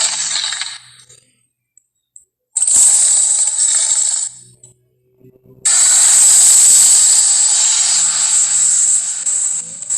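Monster roar sound effect for Sully, built from Disney's Beast roars and an angry caged tiger's snarls. It comes in three bursts: a short one ending about a second in, one of nearly two seconds in the middle, and a long one from a little past halfway to the end.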